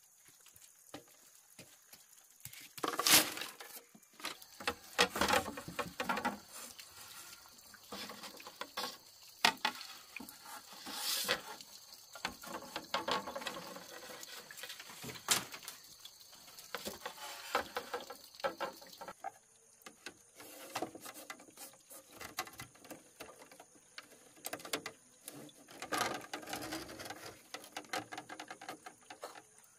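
Irregular clicking, knocking and clattering of hand work, with a few louder clusters of knocks.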